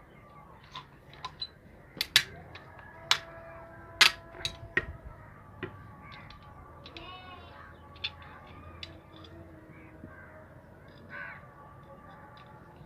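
Sharp hammer strikes, about half a dozen in a few seconds with a few ringing on briefly, with fainter taps after: a bearing being tapped into place on a washing machine motor.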